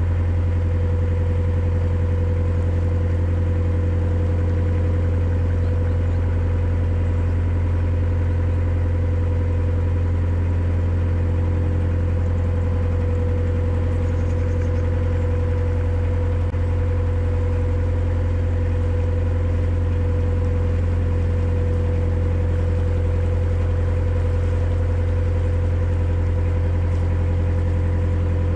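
Narrowboat's engine running steadily while under way: an even low drone with a steady hum above it.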